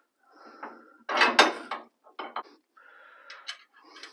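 Steel steering center link being fitted onto the idler arm's tapered stud: one loud metallic clank about a second in, then a few lighter metal clicks and taps as the nut is started by hand.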